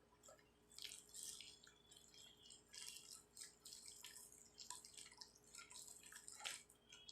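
Faint, irregular wet clicks and sticky crackles of fluffy slime being handled, stretched and squeezed by hand.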